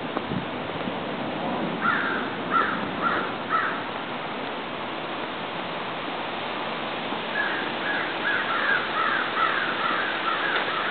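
Crows cawing up in the trees: four separate caws, then after a pause a quick run of about nine caws near the end, over a steady background hiss.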